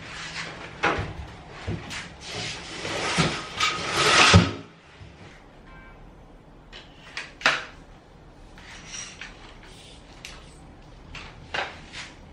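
Knocks and scraping of things being handled on a tiled floor, building to a rough scrape that ends in a thump about four seconds in. Then a few sharp plastic clicks as a Muji broom head is fitted onto its handle pole.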